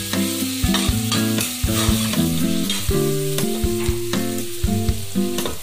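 Metal spoon scraping and knocking against the inside of an aluminium pressure cooker while chopped vegetables and spices are stirred frying in oil, with a steady sizzle. Background music of held notes plays underneath.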